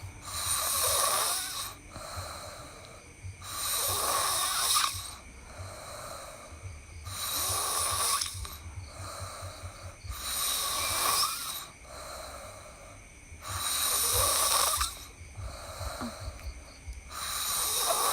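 A sleeping person snoring in a slow, regular rhythm, one rough, noisy snore about every three and a half seconds, six in all.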